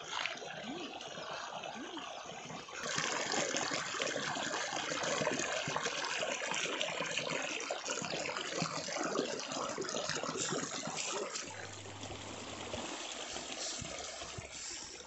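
Water trickling and splashing in a small stream, a busy crackling rush that jumps suddenly louder about three seconds in.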